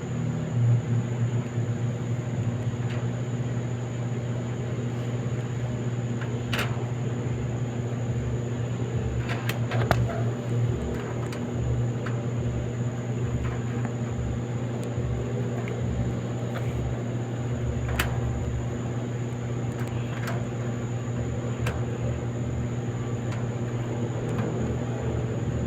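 Clothes dryer running: a steady motor hum with a faint low thumping about twice a second, and a few sharp clicks.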